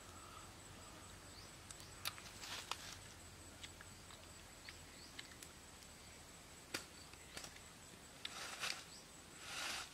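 Faint handling sounds of grilled eel being pulled apart and picked at by hand: scattered sharp clicks and a few short rustles, the loudest rustles coming near the end. A faint steady high tone runs underneath.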